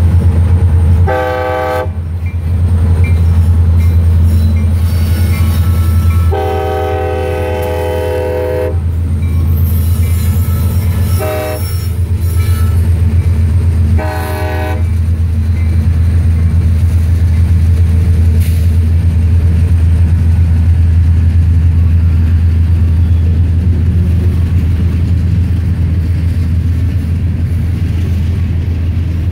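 Freight diesel locomotive horn sounding four blasts: a short one, a long one, then two short ones. A steady low rumble of the train runs under them, and after the last blast the covered hopper cars roll past with a faint clatter of wheels.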